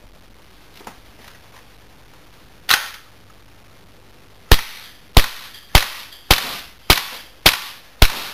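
Tokyo Marui Desert Eagle .50AE gas blowback airsoft pistol firing: a single shot a little before the middle, then a string of seven shots about 0.6 s apart, each a sharp crack with a short tail. A few faint clicks come first.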